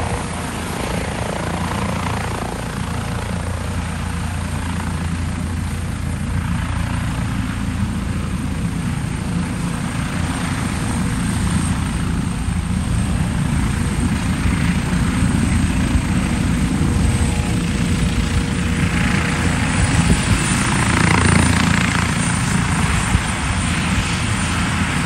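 Eurocopter EC155 (H155) twin-turboshaft helicopter, with a five-blade main rotor and enclosed Fenestron tail rotor, hovering low and setting down on a runway, then running on the ground with its rotors turning. The rotor and turbine sound is steady throughout and grows somewhat louder past the middle.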